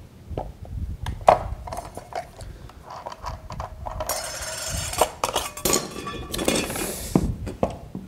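Clinks, clicks and scraping of metal tool parts being handled: an angle grinder and its cutting dust shroud being moved and adjusted, with one sharper click about a second in and a couple of short scraping stretches later on.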